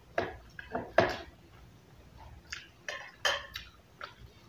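Crisp crunching and snapping of fresh raw leafy greens, a string of short irregular bursts with the loudest about a second in.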